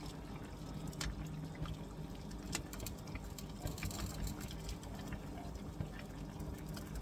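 Chicken simmering in a pan of marinade, the liquid bubbling with many small pops, while a ladle scoops the juice and pours it back over the meat. A steady low hum runs underneath.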